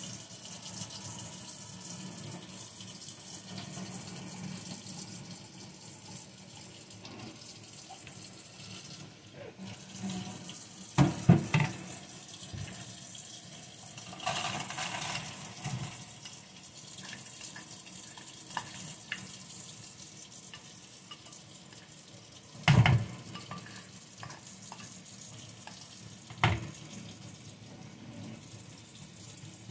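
Water running steadily from a kitchen faucet into a stainless steel sink while rice is rinsed in a bowl under it. A few sharp knocks break through, the loudest about a third of the way in and again about three quarters through.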